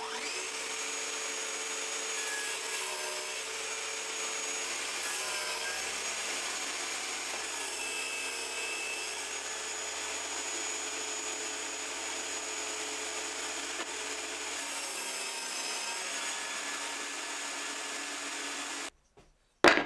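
Benchtop table saw running and crosscutting oak, a steady whine whose pitch dips a few times as the blade cuts through the wood. It stops suddenly near the end.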